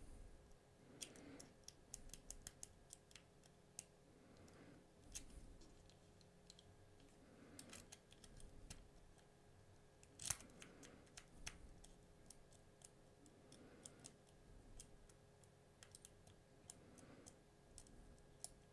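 Faint, scattered clicks and ticks of a hook pick working the pin stack of a Bell Armoury 200 padlock while it is being picked, with one louder click about ten seconds in.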